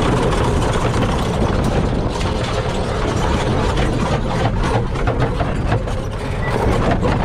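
Custom Club Car golf cart driving fast over gravel and dirt: a loud, steady rush of wind on the microphone and tyre noise, with frequent short crackles from the gravel.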